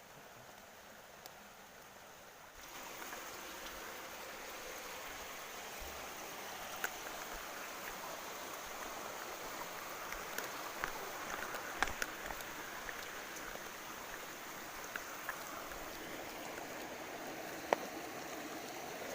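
Water of a small mountain stream below a waterfall, rushing in a steady hiss that gets louder about two and a half seconds in, with a few short clicks.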